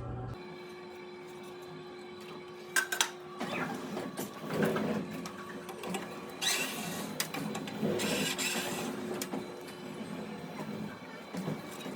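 The hum of a fan coil's blower motor cuts off about half a second in, followed by irregular clattering, knocking and scraping of hands working on the blower wheels and housing.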